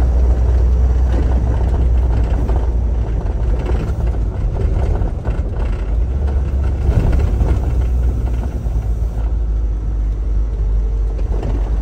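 Isuzu Elf's 4HE1-T four-cylinder turbo diesel running under way, heard from inside the cab as a steady, loud low rumble with road noise, dipping briefly about five seconds in.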